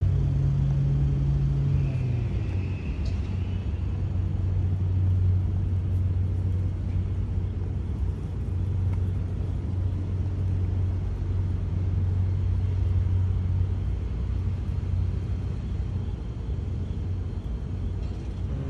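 A steady low motor rumble, like a nearby vehicle's engine running; its pitch drops a little about two seconds in.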